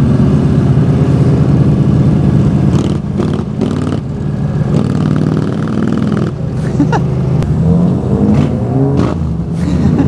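Motorcycle engine and exhaust running under way, heard from the rider's position with road and wind noise. The note holds steady for about three seconds, then dips and rises as the throttle changes.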